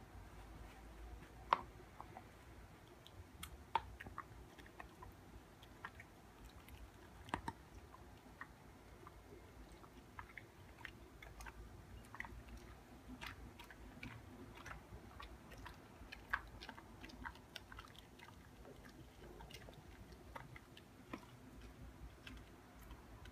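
A husky gnawing on a Greenies dental chew: irregular, fairly faint crunching clicks of teeth on the chew, with a few louder cracks scattered among them.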